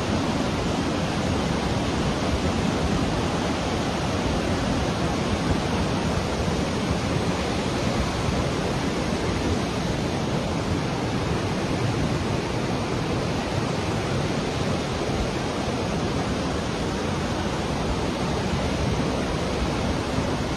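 Steady rushing of a river in flood, its muddy torrent running high through its channel.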